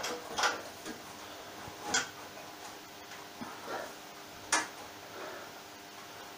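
A few sharp clicks and light knocks, three of them standing out, from fixings and parts being handled under a drum sander's steel stand while its bolt holes are lined up, with softer shuffling between.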